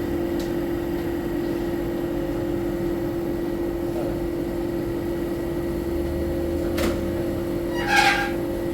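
A steady machine hum, with a sharp click about seven seconds in and a short clatter about a second later.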